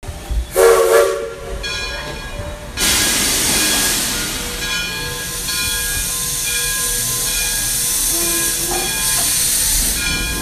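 Steam locomotive: a short whistle blast about half a second in, then loud, steady hissing of steam from about three seconds on, with faint tones coming and going over it.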